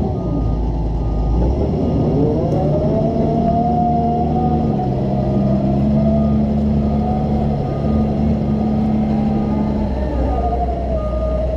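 Doosan DX140 excavator's diesel engine and hydraulics running under load, its whine dipping in pitch near the start, then rising again and holding. A faint short beep repeats about twice a second.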